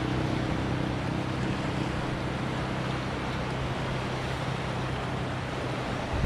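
Mountain river water rushing steadily, with a steady low hum over it that stops near the end.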